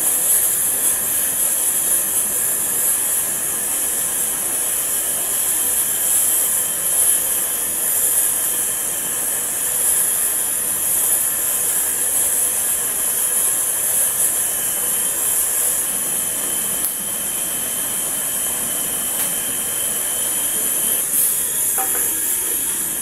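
Steady hiss of the gas flame from a burner on top of a gas cylinder, heating an aluminium pot of boiling noodles. There is a short metallic clink near the end as the pot's aluminium lid is set on.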